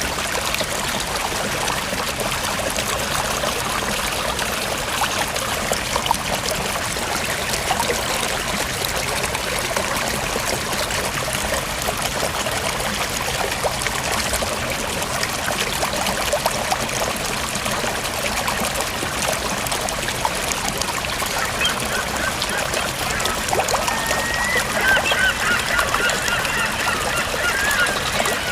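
Water of a mountain stream and waterfall running steadily. A few faint high-pitched wavering calls sound over it in the last few seconds.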